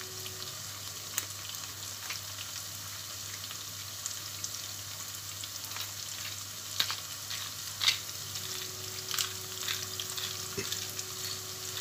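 Minced meat, onion and tomato-pepper paste sizzling steadily in a stainless steel pot as the paste is fried, with scattered short crackles.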